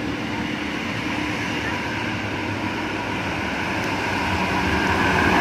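Bus engines climbing a steep hill with road noise, growing louder near the end as the buses come closer.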